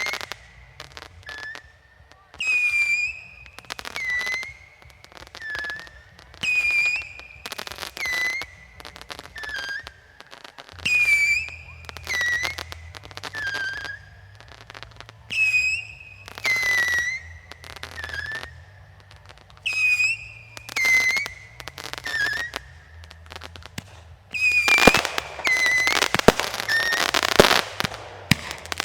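Fireworks going off one after another, a sharp bang about every second or two, each carrying a short whistle that dips in pitch at its end. Near the end the shots come close together in a denser volley.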